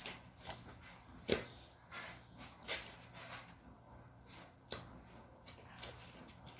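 Handling of metal frame parts and loose hardware during assembly: a few scattered light clicks and knocks, the sharpest about a second in, over soft rustling.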